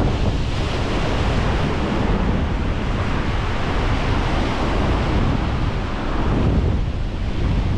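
Heavy surf breaking and washing over the rocks, a steady rush of water, with wind buffeting the microphone.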